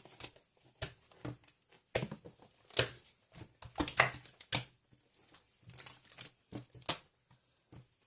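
Irregular clicks, taps and rustling, a few a second and uneven, the loudest about four seconds in.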